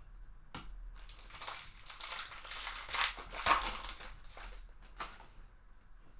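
A baseball card pack's wrapper crinkling and rustling as it is torn open by hand. The crackling builds and peaks about three and a half seconds in, then dies away near the end.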